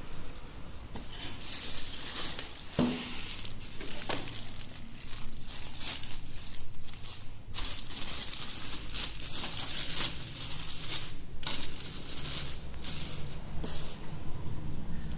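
Packaging rustling and crinkling as a computer case is unboxed, with two knocks about three and four seconds in.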